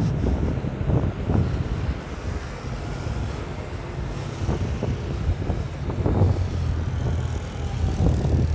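Street traffic ambience: a steady low rumble of passing vehicles with occasional short knocks.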